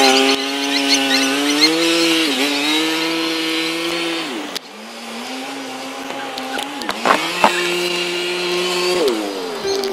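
Quad (ATV) engine running under throttle while pulling a sled. Its pitch holds, dips and rises again several times, with a sudden break about halfway.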